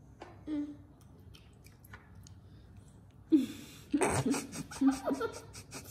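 A small child eating noodles with mouth noises: faint chewing and smacking at first, then from about three seconds in a short burst of voice and a quick run of sharp smacking clicks.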